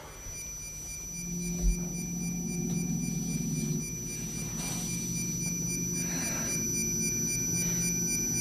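Electronic sci-fi sound effect: several steady sine-like tones held together, a low hum beneath and a faint pulsing high tone above. There is a brief low thump about two seconds in and soft swells of hiss in the middle.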